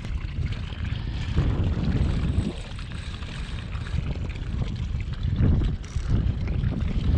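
Wind buffeting the microphone, a low rumble that swells in gusts about a second and a half in and again near the end.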